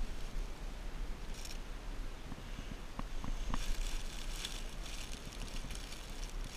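Dry leaf litter rustling and crackling in short spells, with a few sharp snaps about halfway, over a low rumble of wind on the microphone.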